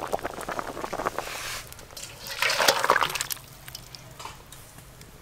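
Hot fish broth sloshing and splashing as boiled fish pieces are ladled out of a wok and poured into a steel bowl, with small clicks of the ladle at first and the loudest pour about halfway through.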